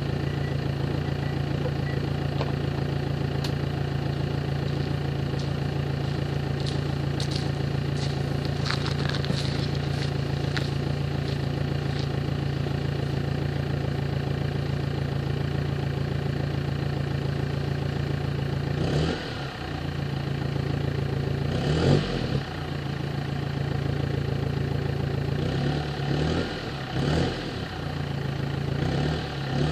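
BMW 320d E90's four-cylinder diesel running through its exhaust with the rear silencer removed, heard at the tailpipes: a steady idle with a few faint ticks. From about nineteen seconds in, the throttle is blipped several times, each rev rising briefly and falling back to idle.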